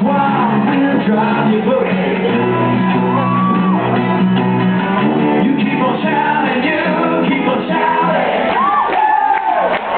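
Live band playing a rock song on strummed acoustic guitars with singing, mixed with shouts and whoops, heard from the audience in a large hall.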